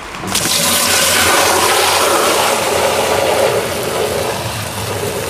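Steady rush of water pouring into a green plastic duck drinker, where powdered cold medicine is being mixed in. It starts sharply just after the start.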